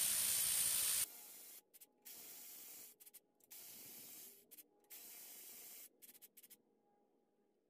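Cordless electric ratchet running on fasteners of an air-cooled VW engine case. One loud run cuts off about a second in, followed by several quieter short runs of about a second each.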